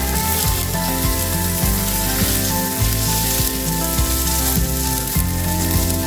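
Kingfish steaks sizzling in butter in a hot pan, a steady frying hiss, under background music with held low notes that change every half second or so.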